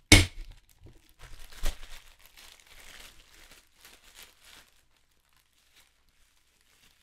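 A sharp knock, then crinkling of plastic wrap as a Funko vinyl figure is pulled out of its black plastic bag and clear plastic wrapper; the crinkling stops about four and a half seconds in.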